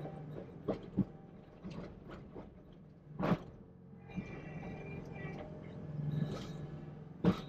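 John Deere 325G skid loader's diesel engine running at low revs, with creaks and sharp clunks from the loader bucket and arms as it dumps soil. The loudest clunks come about a third of the way in and again near the end.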